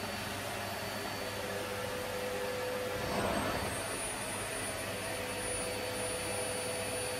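Vacuum cleaner running steadily, a constant whir with a thin high whine, swelling slightly about three seconds in.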